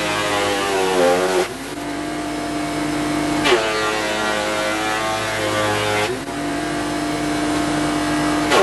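Electric woodworking machine running while cutting green oak. Its motor whine sinks in pitch each time the timber takes the blades, about three and a half seconds in, and climbs back about two and a half seconds later as the load comes off.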